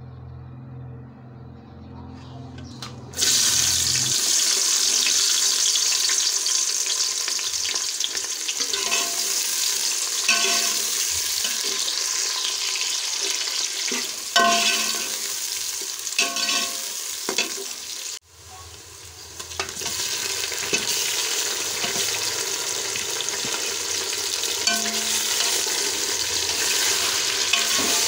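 Sliced onions and then chicken pieces frying in hot ghee in an aluminium pot. A loud, steady sizzle starts abruptly about three seconds in, and a metal spoon knocks and scrapes against the pot as the food is stirred. The sizzle cuts off sharply past the halfway point and builds back up.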